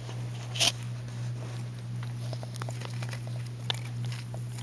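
Small scattered clicks and rustles of a hamster moving about inside a plastic hideout on a plastic sheet, with one louder click under a second in, over a steady low hum.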